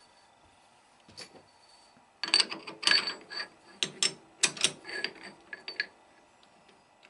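Aluminium bar being set into a lathe chuck: a small click about a second in, then a run of sharp metallic clicks and rattles for about four seconds as the bar and chuck jaws knock and are worked.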